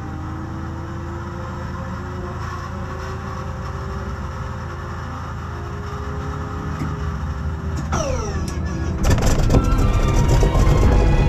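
North American Harvard's Pratt & Whitney R-1340 radial engine being started. A steady starter whine runs until about eight seconds in, then falls away in pitch as the starter turns the propeller over. About a second later the engine catches and runs loudly with rapid firing.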